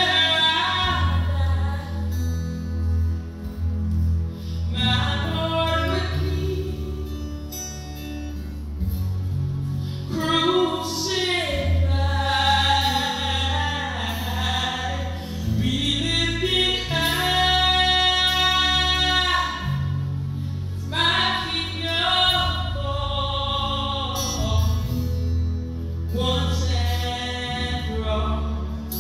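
Live worship song: a woman sings lead into a microphone over keyboard and violin accompaniment.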